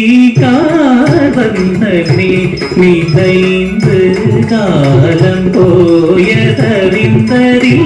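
Carnatic dance music for a Bharatanatyam performance: an ornamented melody gliding up and down in pitch over sustained lower notes.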